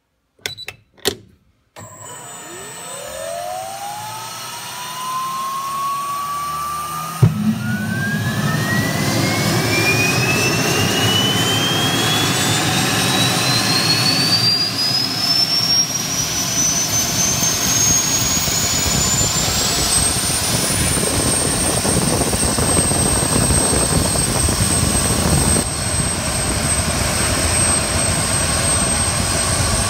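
A few switch clicks, then the Stuttgart Engineering STV 130 turboprop's automated start: the turbine spools up with a whine that climbs steadily in pitch. About seven seconds in there is a sudden thump as it lights off, and a loud rushing roar joins. The whine keeps rising for some fifteen seconds more, then settles to a steady high whine as the engine reaches idle.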